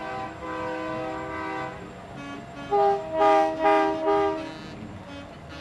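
Semi truck's multi-tone train-style air horn sounding a held chord for under two seconds, then, after a brief gap, a louder run of about four short blasts.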